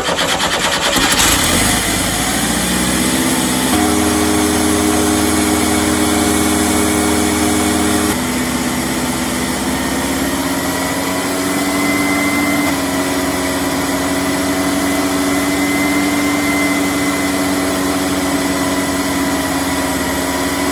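Chevy 2.5L Iron Duke four-cylinder engine running at a high idle that climbs in steps, rising early on and again about halfway through. This is a runaway idle, which the owner is fairly sure comes from a vacuum leak.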